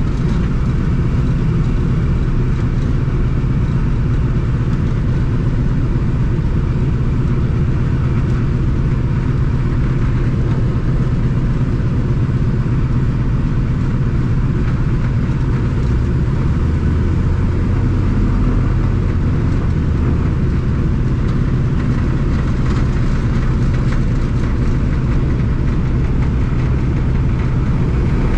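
Ford Tri-Motor's radial engines running steadily at low power as the plane taxis, heard from inside the cabin. The drone is deep and even, with a short swell in the low rumble about two-thirds of the way in.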